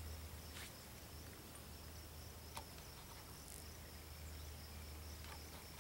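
Faint rural ambience: insects keep up a steady high-pitched drone over a low steady hum, with a few faint clicks.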